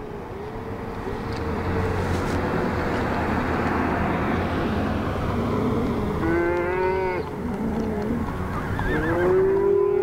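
Cattle mooing: several calls, the loudest and longest near the end. Under them, the steady tyre noise of a car passing on the highway in the first half.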